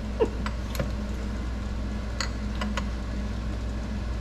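A handful of light clinks and taps from metal engine parts and tools being handled, scattered over a steady low hum.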